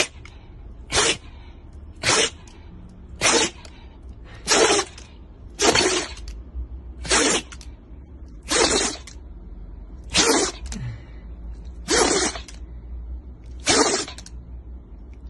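A Shiba Inu sneezing over and over, about eleven sharp sneezes, one every second to second and a half, each with a quick jerk of the head.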